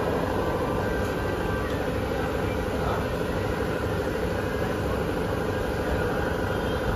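Mumbai local electric train standing at the platform, giving a steady hum with a couple of held tones.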